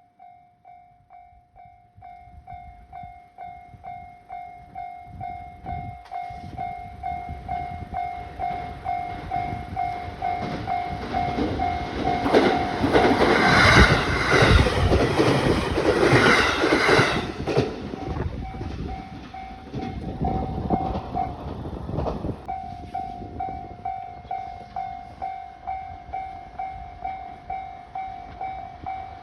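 Japanese level crossing warning bell ringing in a steady beat, about two strokes a second, while a train approaches and passes over the crossing; the train is loudest about halfway through, with wheels clattering over the rail joints, and the bell keeps ringing after it has gone by.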